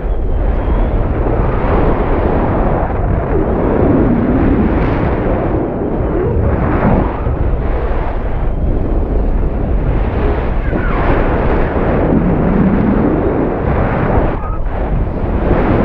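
Loud wind buffeting a high-altitude balloon payload's microphone as the payload falls under its parachute after the balloon has burst: a continuous rushing noise that swells and eases every few seconds.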